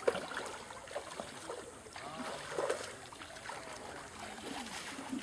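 Faint sloshing of pond water as a man wades pushing a small boat, with a few light splashes and clicks.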